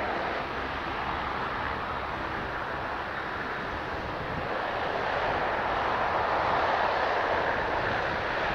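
Four Allison T56 turboprop engines of a C-130H Hercules running as it taxis past, a steady propeller-and-turbine drone that grows a little louder in the second half.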